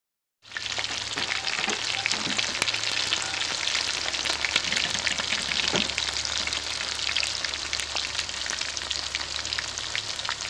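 Chicken pieces deep-frying in hot oil in a pan: a steady, dense sizzle full of small crackles and pops, starting about half a second in.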